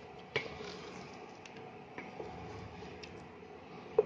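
A spatula stirring milk into a thick gravy in a metal pot, with a few light knocks of the spatula against the pot, the sharpest near the end.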